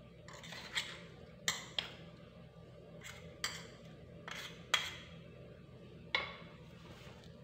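A spoon scraping and knocking against a steel container as ground coconut filling is emptied out into a bowl: about half a dozen sharp clinks spread through, with softer scraping between.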